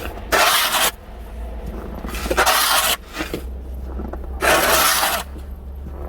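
A snow shovel scraping through deep snow three times, about two seconds apart, over a steady low rumble.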